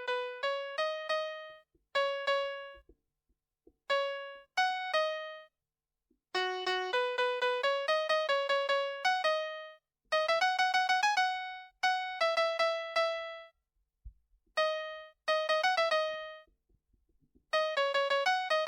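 VTech Baby's Pop-it-Tablet toy playing a simple children's melody through its small speaker in electronic, piano-like single notes. The tune comes phrase by phrase, with short pauses in between.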